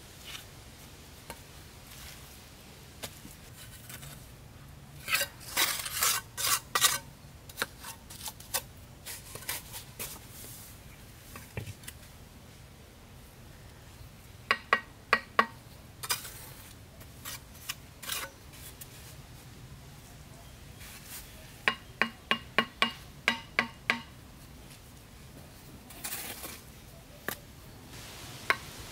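Clusters of sharp knocks and clinks from hand tools striking, several with a brief ring: a run of quick blows around five to seven seconds in, four ringing strikes in the middle, and about eight fast ringing strikes near the end.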